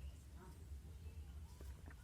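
Near silence: a low steady hum with a few faint, soft handling noises.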